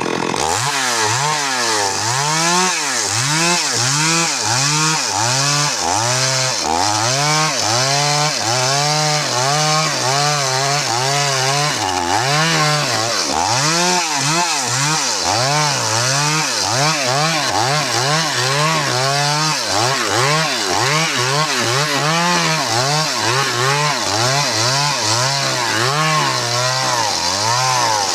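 Stihl MS 382 two-stroke chainsaw running hard and cutting wood, its engine pitch sagging under load and picking back up over and over, roughly once a second.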